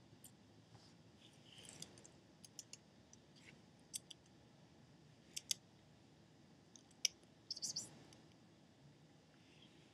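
A chipmunk taking peanuts from a person's palm, heard as faint, scattered sharp clicks: a pair about five and a half seconds in, and a single click followed by a short cluster just after seven seconds.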